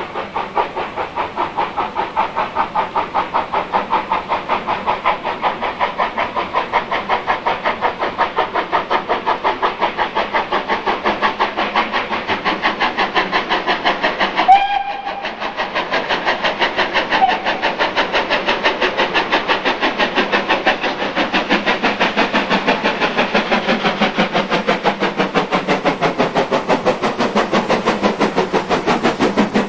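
Steam locomotive working a train, its exhaust beating steadily at about three chuffs a second. About halfway there is a short, sharp whistle toot, the loudest moment, and the chuffing carries on after it.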